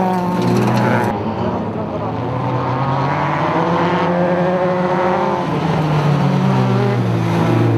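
Citroën Saxo race car's engine revving hard, its pitch climbing and dipping with throttle and gear changes, with a marked drop and climb again about five and a half seconds in.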